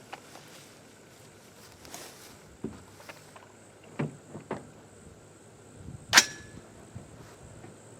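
A single rifle shot from a 300 Blackout AR about six seconds in, sharp and loud with a short ring-out. A few faint knocks come before it.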